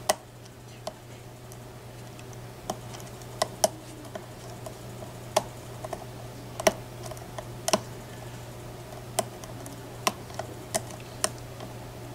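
Lock pick and tension tool working the pins of a Mako M2 small-format interchangeable core: irregular sharp metallic clicks, a dozen or more spread unevenly, as the pins are picked toward the operating shear line.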